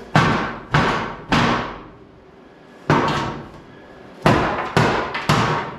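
Hammer blows knocking loose the wooden bed boards of a 1949 Chevy truck: seven sharp strikes, each with a short ringing tail. Three come about half a second apart, one stands alone near the middle, and three more follow near the end.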